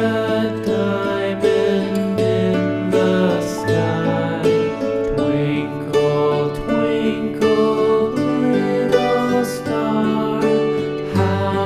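Background music: a gentle instrumental with plucked-string notes over held bass notes.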